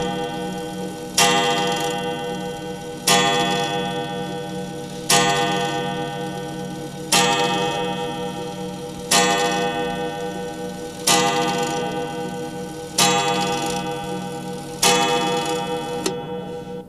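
A bell tolling slowly, struck about every two seconds, each stroke ringing with many overtones and fading before the next. A steady pulsing low tone runs beneath it.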